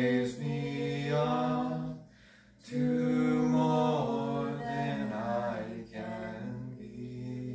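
A male and a female voice singing a slow duet together, holding long notes, with a short breath pause about two seconds in.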